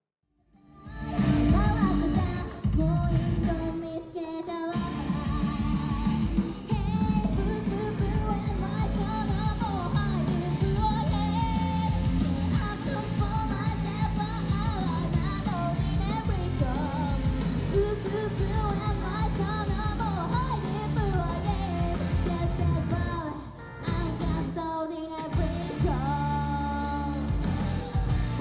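Live pop-rock song: a woman singing to her own electric guitar with a full band sound behind her. It starts about a second in.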